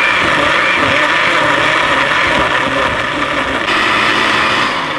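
Countertop blender running at full speed, puréeing smoked tomatoes, tomatillos and serrano and jalapeño peppers into a sauce base. It is a loud, steady whir that begins to die down right at the end.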